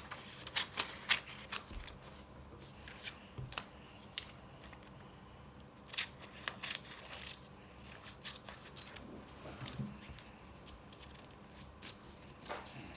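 Scissors cutting paper into strips: a run of irregular short snips with paper handling in between.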